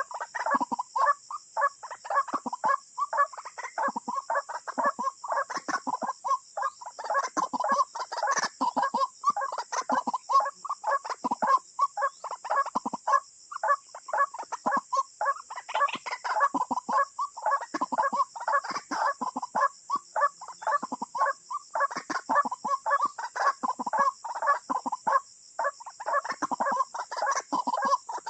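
White-breasted waterhens calling: a continuous run of short, harsh croaking notes repeated several times a second, with no pause.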